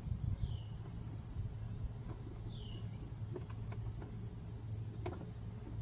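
Birds chirping: short high chirps repeat every second or two, with a couple of downslurred whistles, over a steady low rumble. A few faint clicks come as a handle is fitted to a portable fridge.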